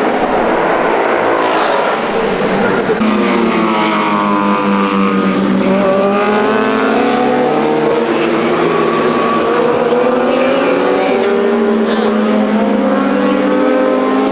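Several 1000 cc superbike engines revving at a distance, overlapping, their pitch rising and falling again and again as they accelerate and shift through the gears.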